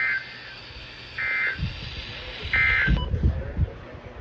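EAS end-of-message data bursts from a NOAA Weather Radio: three short, shrill two-tone digital warbles about 1.3 s apart, signalling the end of the alert broadcast. About three seconds in, the radio's background hiss cuts off, and several low thumps come near the end.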